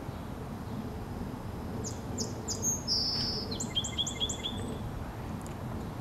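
Song sparrow singing one song about two seconds in: three clear introductory notes, a buzzy note, then a quick run of lower notes. A steady low background rumble lies underneath.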